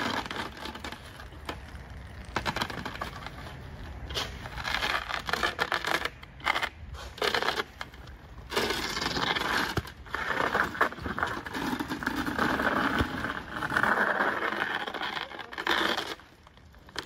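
Wooden bookshelf being pushed and sliding across an icy crust of snow, scraping in uneven stretches with short pauses.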